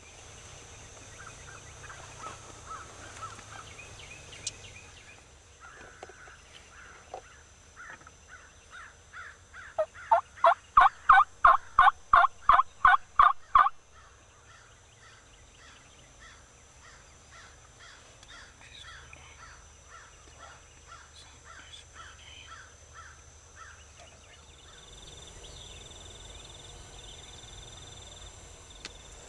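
A turkey yelping: a run of about fifteen loud, evenly spaced yelps over about four seconds, beginning about ten seconds in. Quieter dawn birdsong is heard around it.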